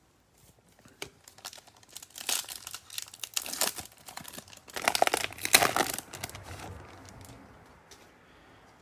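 Baseball card pack wrapper being torn open and crinkled. A run of crackling rustles that builds in the middle and is loudest a little past halfway, then dies away.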